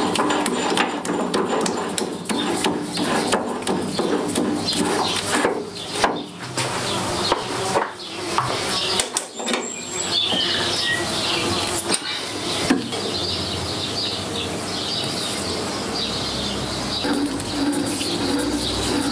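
Metal knocks, clinks and handling noises as an ER32 collet chuck is fitted and tightened onto a lathe backplate. The knocks are sharp and frequent for the first dozen seconds, then give way to a steadier sound.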